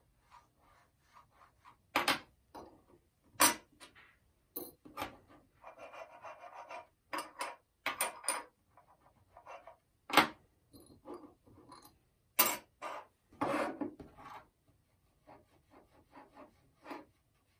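Gold bars being set down and slid on a hard countertop: irregular sharp taps and clicks, with a short stretch of rubbing about six seconds in.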